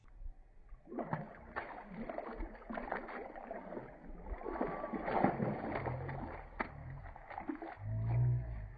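Water splashing and sloshing as a macaque wades and paddles with its hands in a shallow pool, a quick run of small splashes and drips. A low rumble swells near the end.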